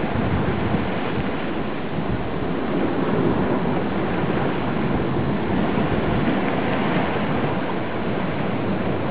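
Steady, muffled rush of moving water, heard from underwater in a rock pool, with no distinct events.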